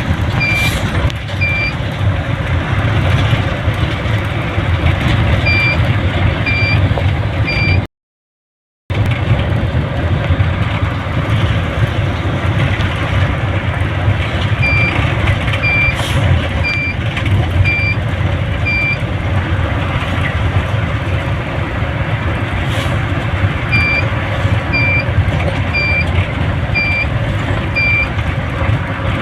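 Steady engine and road noise from a vehicle on the move, with runs of short high beeps about one a second, repeating several times. The sound cuts out completely for about a second near a third of the way in.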